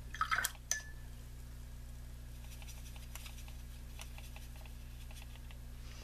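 Watercolour brush swished in a cup of rinse water and tapped against it, a short wet clatter with a brief ring about a second in. Faint scratchy brush sounds follow.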